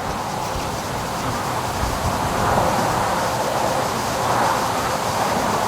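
Strong gusting wind, a steady rushing noise that swells and eases.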